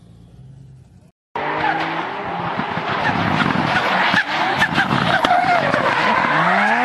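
About a second in, after a short silent cut, a Mk4 Toyota Supra drift car starts sliding: the engine runs at high revs, pitch falling and climbing as the throttle is worked, with several quick rising revs near the end, over the screech of spinning rear tyres.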